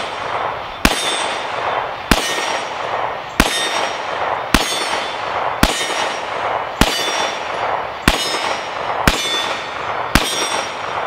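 Canik TP9 9mm pistol fired at a slow, steady pace, nine shots about one every 1.1 seconds. Each shot is followed by the ringing clang of the AR500 steel plate it hits, which lasts until the next shot.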